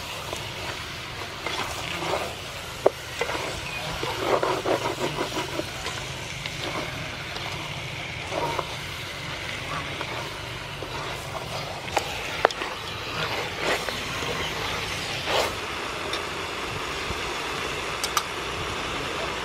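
Chicken pieces frying in curry paste in a metal pot while a wooden spoon stirs them: a steady sizzle under scraping and sharp knocks of the spoon against the pot, with a quick run of strokes about four seconds in.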